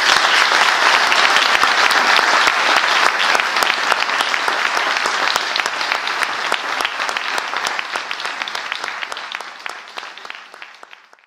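An audience applauding, dense clapping that gradually fades away over the last few seconds.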